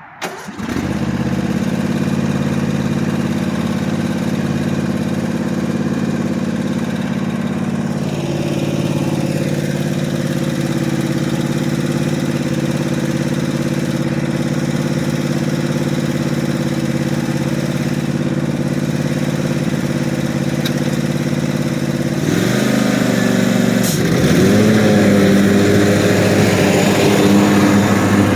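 23 HP Kawasaki V-twin engine of a zero-turn riding mower catching on a brief crank, then running at a steady idle. About 22 seconds in the throttle is moved: the note wavers, dips briefly, then settles at a higher, louder engine speed.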